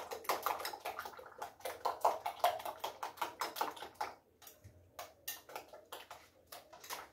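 Eggs and blended tomato being beaten in a glass bowl, the utensil clicking rapidly against the glass. About four seconds in the strokes thin out to scattered clicks.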